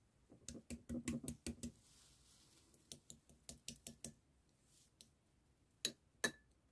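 Clear jelly slime being scooped and stirred with a plastic spoon in glass bowls. It makes quick runs of soft, sticky clicks. Near the end come two sharper knocks, the second ringing briefly like plastic tapping the glass.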